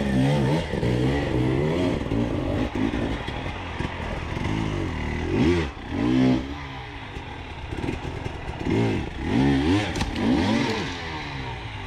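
Enduro dirt bike engines revving in repeated short throttle blips, the pitch climbing and dropping every second or so as the bikes pick their way over roots and a fallen log. Some clattering can be heard between the blips.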